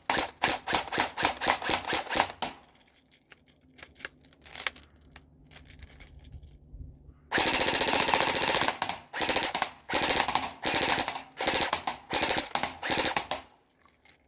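Air gun firing rapid strings of shots, about five a second, then a lull with a few faint clicks. About halfway through, a long, continuous full-auto burst, followed by repeated short bursts.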